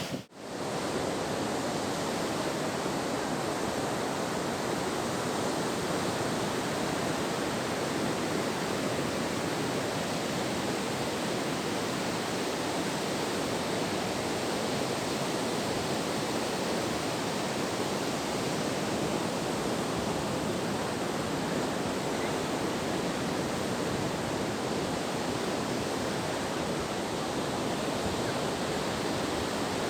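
Steady, even rush of surf on an open beach, with no pauses between waves.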